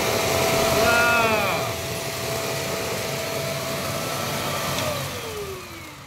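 Kent Storm stick vacuum cleaner's motor running with a steady hum while sucking puffed rice off a tiled floor, then switched off near the end, its pitch falling as the motor winds down. A brief high-pitched rising-and-falling sweep is heard about a second in.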